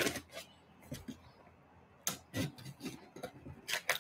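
Hands working at the taped top of a cardboard box: a sharp tap at the start, then scattered short scrapes, taps and rustles of fingers and packing tape on cardboard as the box is opened.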